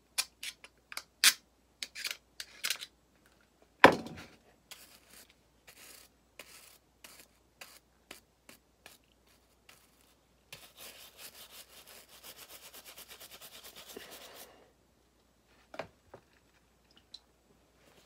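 Microfiber towel rubbing and scraping rust residue off a metal hand tool after a white-vinegar soak, with scattered scrapes and clicks and one loud knock about four seconds in. Past the middle comes about four seconds of rapid back-and-forth rubbing, then a couple of clicks near the end.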